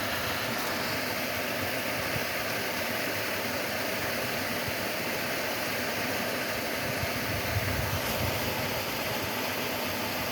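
Water rushing steadily through a canal lock, a constant even noise with no let-up.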